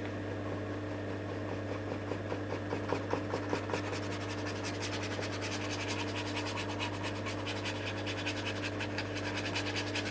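Paintbrush scrubbing grey paint into the painting surface in short, quick, repeated strokes, a dry scratching that gets faster from about halfway through. A steady low hum runs underneath.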